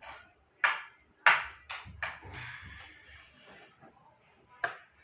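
A handful of sharp knocks and clicks of hard objects being handled, the loudest about a second in.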